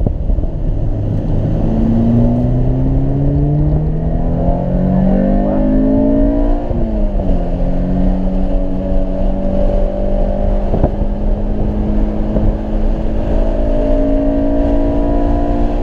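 1998 Acura Integra GSR's B18C1 four-cylinder engine heard from inside the cabin on track. The revs climb for about five seconds, the pitch drops sharply around seven seconds in, and the engine then holds high revs with a slow rise. A single click sounds near eleven seconds in.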